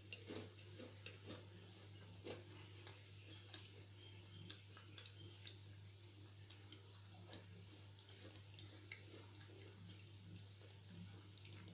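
Near silence: room tone with a steady low hum and scattered faint, irregular ticks.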